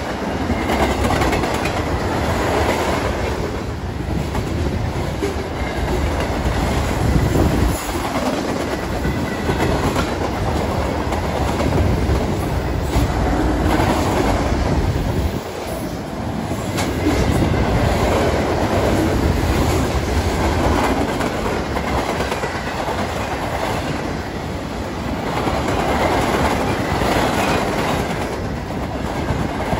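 A train's cars rolling past on the rails: a continuous rumble that rises and falls every few seconds.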